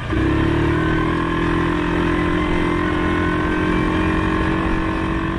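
Honda dirt bike engine idling steadily at an even, unchanging pitch.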